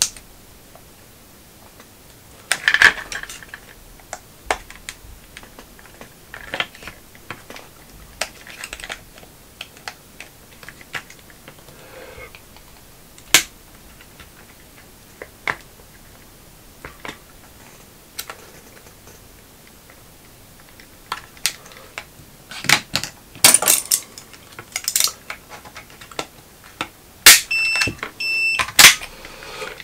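Plastic clicks and snaps as the grey plastic shell of a DJI Robomaster S1 gimbal is pried open with a plastic opening tool, its retainer hooks giving way. Scattered single clicks at first, then a quicker run of sharp snaps over the last several seconds, with a brief high squeak near the end.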